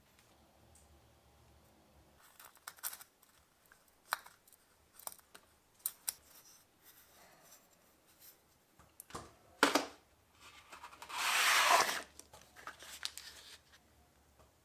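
Handling sounds on a wooden workbench: scattered light clicks and taps as the thin brass cup of a sugar grinder is picked up, turned and set down. About three-quarters of the way through comes a rustling scrape lasting about a second, the loudest sound, followed by a few soft clicks.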